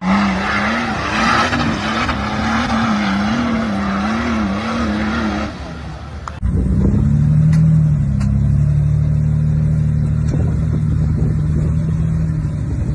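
Off-road 4x4 engines. First one revs hard, its pitch wavering up and down under a loud hiss. After a sudden cut about six seconds in, another engine runs at a steady, held pitch.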